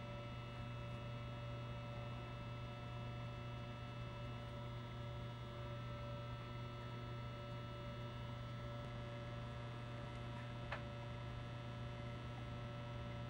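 Steady electrical mains hum with several fixed tones, and one light click near the end.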